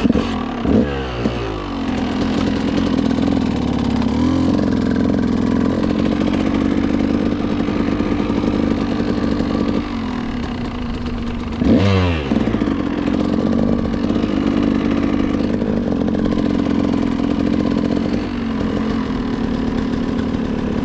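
KTM motorcycle engine running while riding, a steady note with two brief swings in engine pitch, one about a second in and one a little past halfway.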